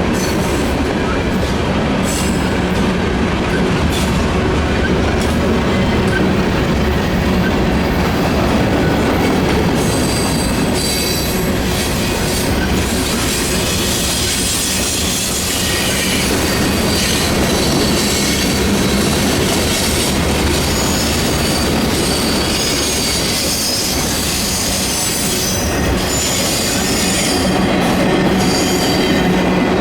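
Freight train cars rolling steadily past, steel wheels on rail, with high-pitched wheel squeal coming and going from about ten seconds in.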